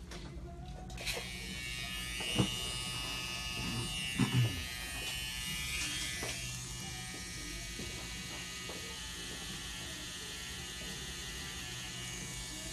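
Electric tattoo machine running with a steady buzz, starting about a second in, with a few short knocks between two and four and a half seconds in.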